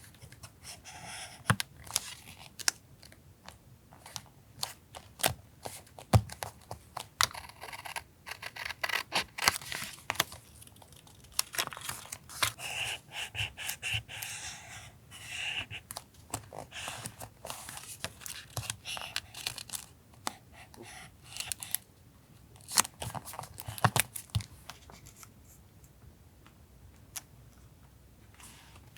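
Paper and stickers being handled, cut with scissors and torn by hand: irregular rustling, crinkling and snipping, with scattered sharp taps and clicks.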